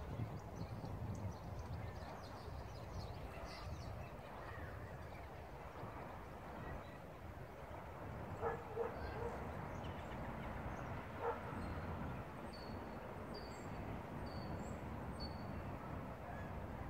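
Outdoor ambience with a low steady rumble. A few short animal calls come about eight and a half and eleven seconds in, and a bird gives four short high chirps a little later.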